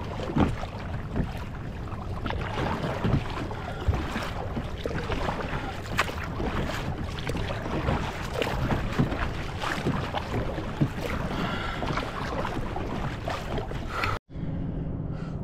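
Water splashing and lapping around a kayak, with wind buffeting the microphone and many scattered small knocks. It cuts off suddenly about a second before the end.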